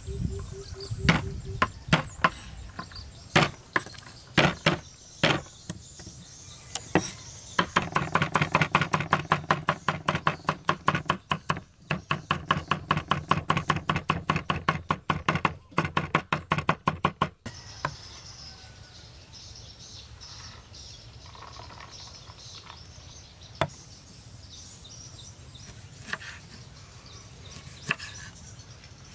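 Cleaver chopping garlic cloves on a wooden cutting board. A few separate knocks come first, then a fast, even run of chopping strokes for about ten seconds. After that come only a few single knocks of a knife on the board as limes are cut. A steady high insect buzz runs underneath.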